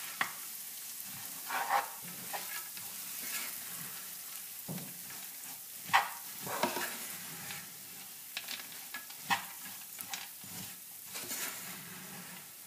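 A white spatula stirring and scraping a mix of rolled oats, almonds and hazelnuts through butter-and-sugar caramel in a non-stick frying pan, over a steady sizzle. The spatula scrapes and knocks against the pan at irregular intervals, the loudest about halfway through. This is the crüsli toasting in the caramel over low heat.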